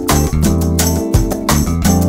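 Upbeat background music with plucked guitar, bass and a steady beat.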